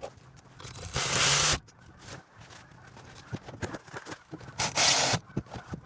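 Tool and parts noise from reassembling a car's rear disc brake: two loud bursts of hiss, each about half a second long and about three and a half seconds apart, with light metallic clicks and knocks between them.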